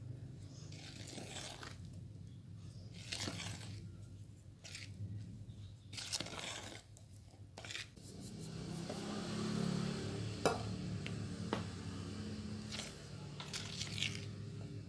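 A spatula scraping and folding thick chocolate brownie batter against the sides of a plastic mixing bowl, in irregular strokes. A low hum swells in the middle, and there is a sharp tap about ten seconds in.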